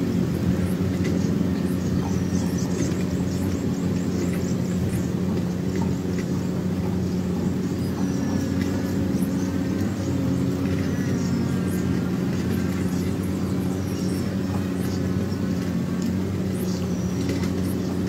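A steady low mechanical hum runs throughout, with faint short high bird chirps now and then.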